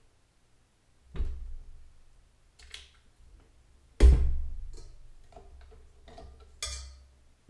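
Knocks and clunks from a KitchenAid Artisan tilt-head stand mixer as its motor head and locking lever are worked. There are three knocks, and the loudest is a heavy metal clunk about four seconds in that rings on briefly.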